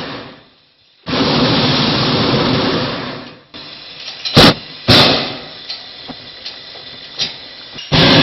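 Hot air balloon propane burner firing in long blasts of steady roaring noise, one cutting off just after the start, another lasting about two seconds, and a third starting near the end. Two sharp clicks come about halfway through, between blasts.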